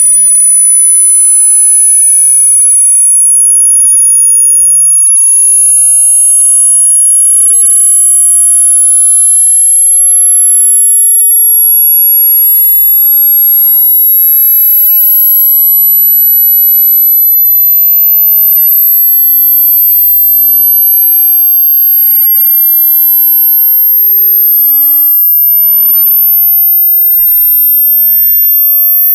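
Loud, high-pitched sine-wave test tone slowly rising in pitch: a burn-in sweep signal for breaking in new speaker drivers and headphones. Fainter tones glide alongside, one sweeping down to a low rumble in the middle and back up.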